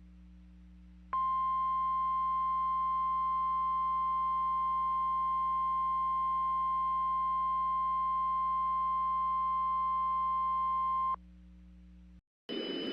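Emergency alert attention tone: a single steady high-pitched beep starts about a second in, holds for about ten seconds and cuts off sharply. A faint low hum runs underneath.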